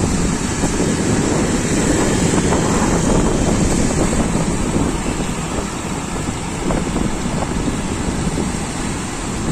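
Wind buffeting the microphone of a moving vehicle, over a steady rumble of engine and road noise from traffic.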